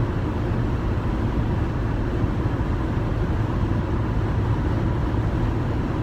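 Steady low rumble of a moving vehicle, even throughout with no sharp knocks or changes.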